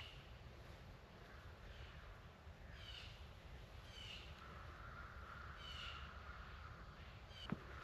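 Faint, short harsh animal calls repeated about once a second, six or so times, in quiet woodland.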